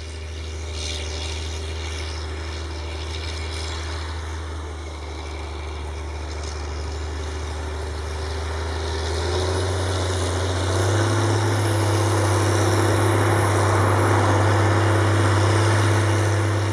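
Caterpillar Challenger MT765C tracked tractor's diesel engine running steadily. About ten seconds in its pitch steps up and it grows louder.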